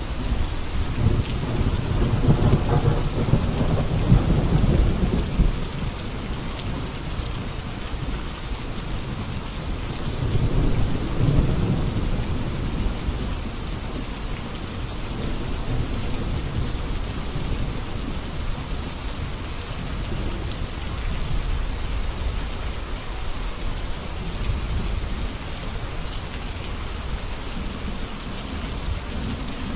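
Steady heavy rain with low rolls of thunder: a long rumble through the first six seconds and another about ten seconds in.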